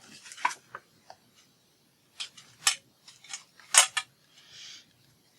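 Craft supplies and the journal being handled on a table: a series of sharp clicks and taps, the loudest nearly four seconds in, then a short rustle of paper about a second before the end.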